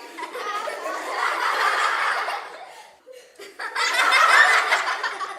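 Laughter sound effect: two bouts of laughing with a short break between them, the second, starting about three and a half seconds in, the louder.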